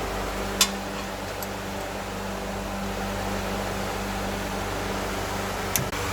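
A steady mechanical hum, with two sharp metallic clinks of hand tools, one about half a second in and one near the end.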